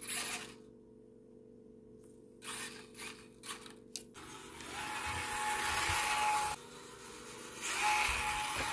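Brushless motor and gear transmission of a 1/24-scale Axial SCX24 RC crawler under throttle: a few short blips, then two longer runs of whirring drivetrain, about two seconds each, with a steady high whine over them.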